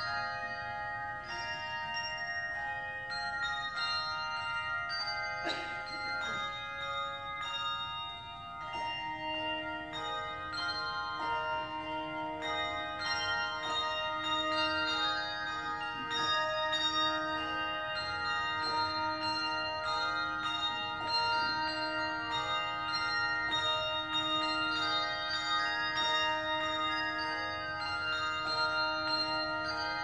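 A handbell choir ringing a tune in parts, many overlapping bell tones ringing on into each other. From about nine seconds in, a low bell note sounds again and again at a steady pace beneath the melody.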